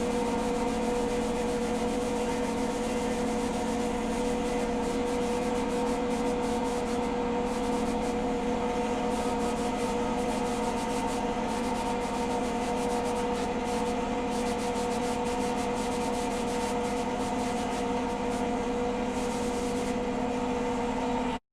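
Homemade coffee demucilager (coffee washing machine) running: a steady motor hum over a continuous rubbing, churning noise, cutting off suddenly near the end.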